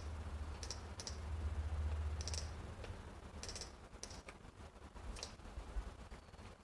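Computer mouse clicking: a scattering of short sharp clicks, some in quick pairs, over a steady low hum.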